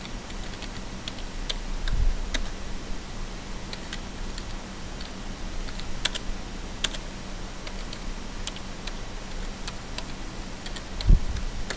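Computer keyboard typing: irregular, scattered keystrokes, with a low thump about two seconds in and a louder one near the end. A steady low hum runs underneath.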